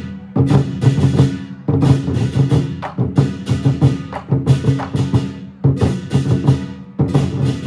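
An ensemble of large barrel drums beaten with sticks, playing fast, loud rhythmic patterns in short phrases with brief breaks between them.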